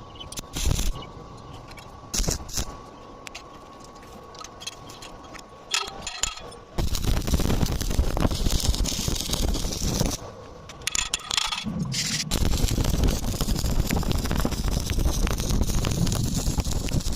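Electric arc welding: some metal knocks and clinks first, then two long stretches of the arc's steady crackling with a short break between.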